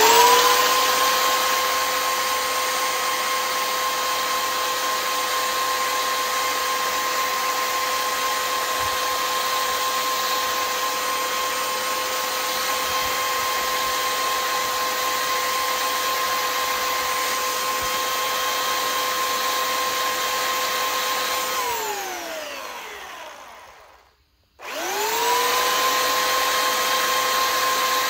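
Electric sander motor switched on, its whine rising quickly to a steady pitch and running. A little over twenty seconds in it is switched off and winds down with a falling pitch to silence. A couple of seconds later it is switched back on and comes up to speed again.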